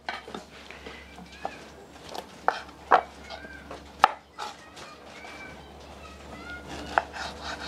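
Kitchen knife slicing a squash on a wooden cutting board: irregular sharp chops, the loudest about three and four seconds in.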